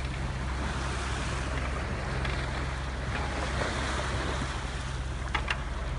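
Sea water rushing and splashing past a sailing yacht's hull, with wind, over a steady low drone.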